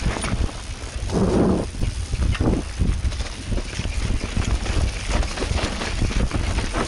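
Mountain bike descending a rooty dirt trail: the bike rattling and knocking over roots and bumps, tyres running over dirt and dry leaves, with wind rumbling on the helmet camera's microphone. A louder burst of noise comes about a second in.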